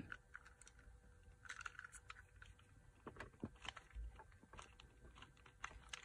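Faint, scattered clicks and taps of hard plastic as a Mercedes W164 steering-wheel button switch is pressed and snapped into its replacement plastic casing by hand.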